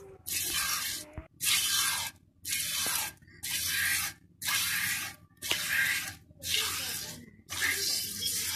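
Buffalo being hand-milked: jets of milk squirt into a metal pot in a steady rhythm, about one hissing squirt a second, as the milking starts.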